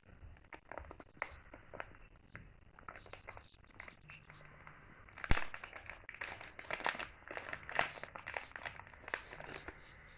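Packaging being handled and opened: irregular crinkling and rustling with scattered clicks, busier in the second half, with one sharp snap about five seconds in.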